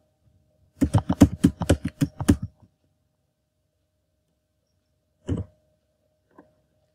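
Computer keyboard typing: a quick run of about ten keystrokes in the first couple of seconds, then one more keystroke a little after five seconds in.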